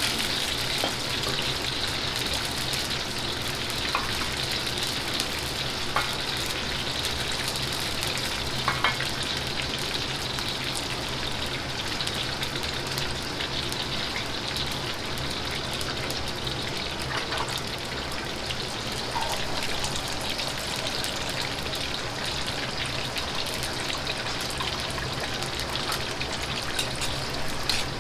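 Starch-coated liver pieces dropped a few at a time into hot oil in a wok, the oil sizzling and bubbling steadily: the oil-blanching stage of a stir-fry. A steady low rumble from the gas wok burner runs underneath, with a few faint clicks from the pieces and utensils.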